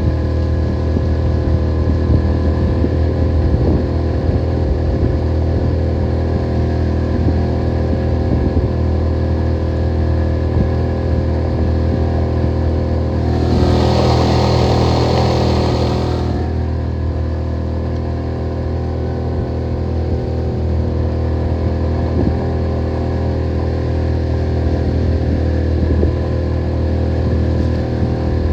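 A small boat outboard motor running steadily under way, with a brief rushing noise about halfway through.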